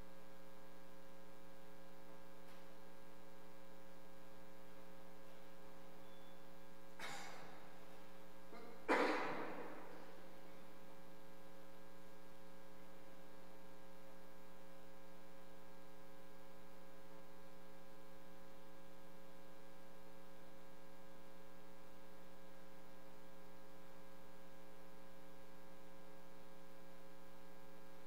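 Steady electrical hum made of several tones at once. About seven seconds in there is a brief soft noise, and about nine seconds in a sudden louder knock that dies away within a second.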